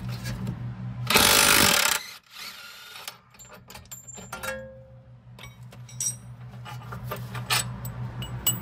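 A cordless DeWalt power tool runs in one loud burst of about a second, spinning out the rear shock absorber's lower mounting bolt while a combination wrench holds the nut. A few light metal clinks of tools follow.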